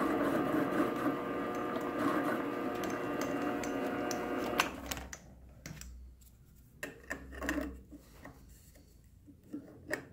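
Small benchtop metal lathe running with its chuck spinning as a washer is trimmed, a steady motor whine with several tones. About four and a half seconds in it stops abruptly with a click, followed by a few light metal clicks.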